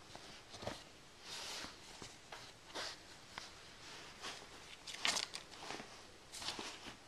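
Stiff paper cut-out and towel rustling under a baby's swiping hand: irregular short rustles and soft scrapes with a few light taps.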